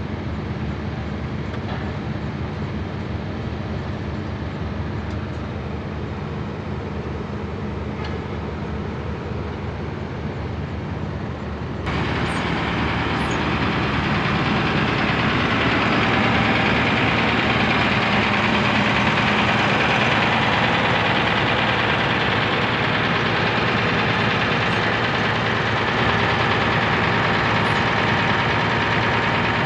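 Large bus engines idling close by, a steady low running. About twelve seconds in the sound jumps suddenly louder and fuller and stays that way.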